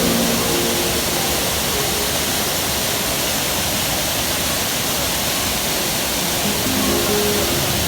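Waterfall rushing steadily, an even wash of noise. Background music comes back in faintly near the end.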